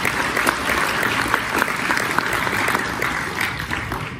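Audience clapping, a dense patter of many hands that dies away near the end.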